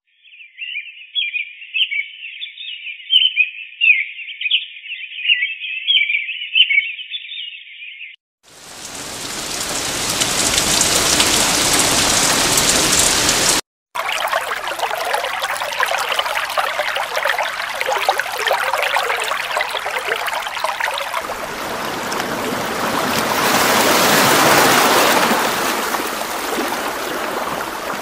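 Sleep-sound-machine nature recordings played in turn. A thin, high chirping lasts about eight seconds, then steady rushing rain with a brief cut-out midway. Near the end a fuller rush swells and eases like surf breaking.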